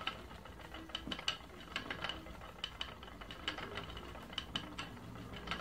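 Wooden spinning wheel turning as yarn is spun, its mechanism giving uneven light clicks, about three or four a second.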